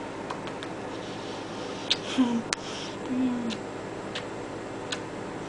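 Several sharp lip-smack kisses with a couple of short, low murmured hums in the middle, over a steady low electrical hum.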